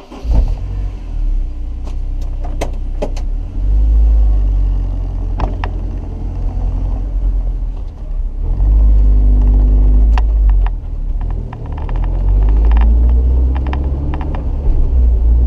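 Honda S2000's inline-four engine with a K&N intake and aftermarket exhaust, heard from inside the cabin: a loud, deep drone that comes in just after the start and rises and falls in steps several times as the engine is revved or worked through the gears.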